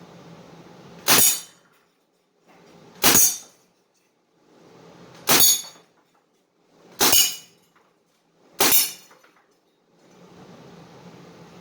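Five single shots from a Crosman DPMS CO2 BB rifle, roughly two seconds apart. Each is a sharp crack with a brief metallic ring after it.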